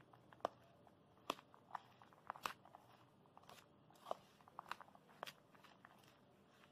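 Metal spoon stirring a mix of chopped onion, capsicum, tomato and grated cheese in a bowl: faint, irregular clicks and scrapes as the spoon knocks against the bowl and moves through the vegetables.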